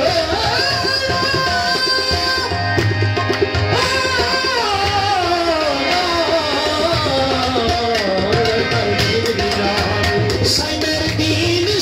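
Qawwali music: tabla drumming under a melody that winds down in pitch from about four seconds in.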